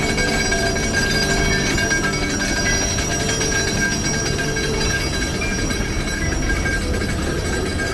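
Mount Washington Cog Railway steam locomotive No. 2 'Ammonoosuc' running slowly on its rack track, a steady, even mechanical rumble with no distinct beats.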